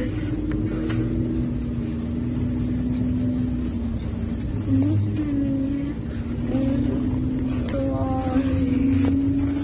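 Low steady rumble inside a moving bus, with a long droning tone over it that slides to a new pitch a few times.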